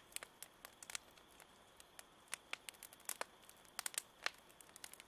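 Faint, irregular crackling: a few small sharp clicks a second, unevenly spaced, over near silence.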